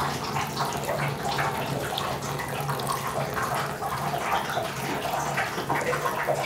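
Thin stream of tap water running steadily from a faucet into a porcelain bathroom sink, splashing near the drain, with a faint steady low hum underneath.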